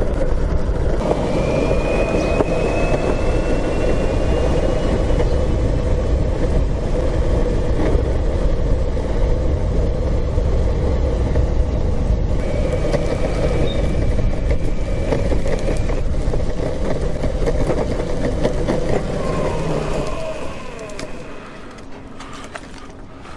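Electric skateboard riding along pavement: a steady rumble of wheels and rushing air, with a faint high electric motor whine that rises slightly. The rumble dies away about 20 seconds in as the board slows and stops.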